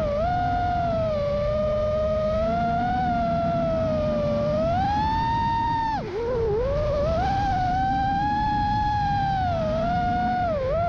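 Brushless motors of an FPV racing quad, iFlight XING2 2306s, whining steadily, the pitch rising and falling with the throttle; about six seconds in the whine drops sharply as the throttle is chopped and then climbs back, with another quick dip near the end. Low wind rush runs under it.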